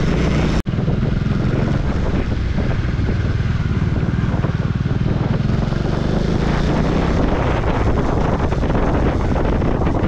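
Bajaj Dominar 400's single-cylinder engine running steadily on the move, with wind noise on the microphone. The sound drops out for an instant just over half a second in.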